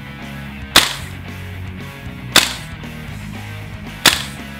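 VFC gas blowback airsoft rifle with a full-travel bolt carrier, run on green gas, firing three single shots through a chronograph, about one every second and a half. Each shot is a sharp crack with a quick decaying tail.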